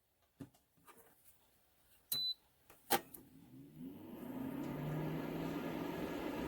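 A few light clicks and a short electronic beep as a Dreo ceramic space heater is switched on. Its fan then spins up with a rising hum and settles into a steady blowing whir.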